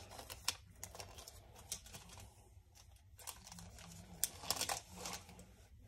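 Plastic wrapper of a hockey card pack crinkling as it is worked open by hand, with the cards inside being handled. Faint scattered crinkles and clicks.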